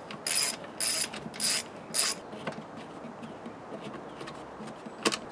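Socket ratchet wrench clicking as it loosens the fuel tank's 10 mm bolts: four quick ratcheting strokes in the first two seconds, then a few quieter clicks.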